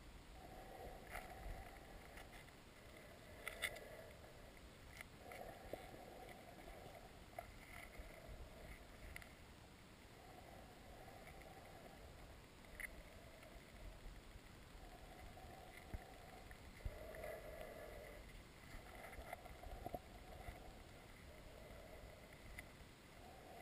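Faint underwater river sound picked up by a submerged camera: a soft swish that comes back every second or two, with scattered small clicks and ticks.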